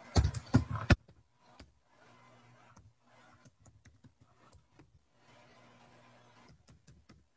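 Computer keyboard typing: a quick run of loud keystrokes in the first second, then faint scattered key clicks.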